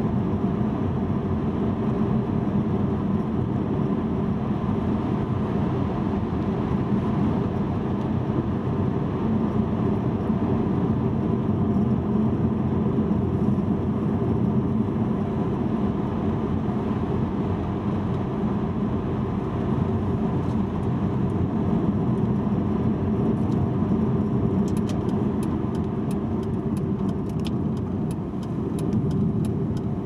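Car driving at highway speed: steady road and engine noise. A few faint ticks or rattles come in near the end.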